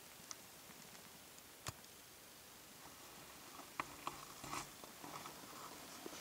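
Quiet forest air broken by a few faint, sharp clicks and light rustles, the loudest one a little under two seconds in.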